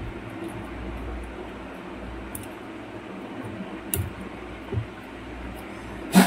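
Steady background hum, broken by a few faint clicks and one sharp click near the end as metal tweezers pry at the glued-in Hall sensors on an electric hub motor's stator.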